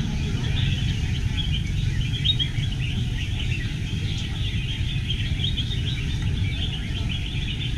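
Many caged red-whiskered bulbuls singing at once, a dense chorus of short overlapping chirps and warbled phrases, over a steady low background rumble.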